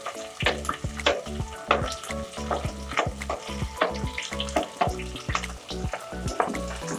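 Chopped onion and green chillies sizzling in hot oil with cumin in a kadhai, with a spoon clicking and scraping against the pan as they are stirred. Background music with a steady beat runs underneath.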